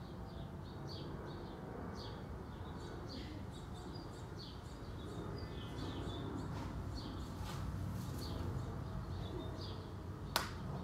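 Small birds chirping repeatedly over a steady low outdoor rumble, with one sharp click near the end.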